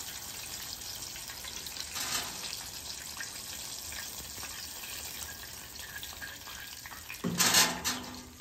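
Hot oil sizzling and crackling steadily in a cast-iron skillet as chicken tenders deep-fry. A short, louder noise cuts in about seven seconds in.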